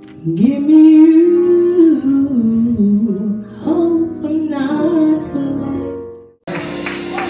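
Woman singing a church praise song into a microphone over music, with long held and sliding notes. About six seconds in it fades away, and another sung song cuts in abruptly.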